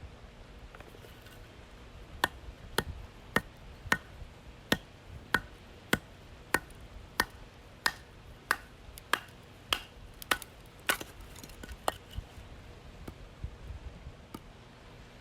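A run of about fifteen sharp, evenly spaced strikes, roughly one and a half a second, each with a short ring, then a few fainter taps near the end.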